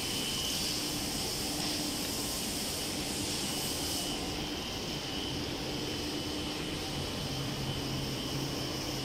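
Steady, even machinery noise in a fiberglass finishing workshop, with a low hum underneath that grows a little stronger in the second half.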